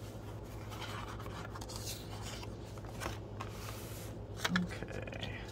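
Paper handling: a translucent sheet in a journal is turned over and the pages are rubbed flat by hand, making several soft, brief rustles. A steady low hum runs underneath.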